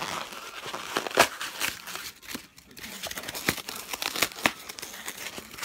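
Packing material being handled and pulled out of a box: irregular rustling and crinkling with sharp little crackles and taps, and a brief lull about two seconds in.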